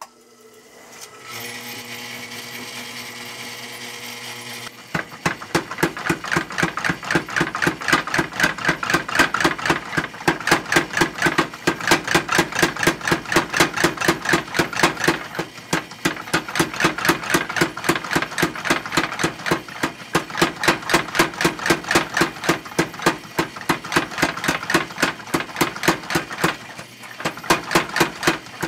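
A 25-pound Little Giant power hammer: its electric motor starts and hums steadily, then about five seconds in the hammer begins striking a red-hot steel bar in a fast, steady rhythm, with brief pauses around the middle and near the end. The hammer's motor is running off a battery power station, and it runs it fine.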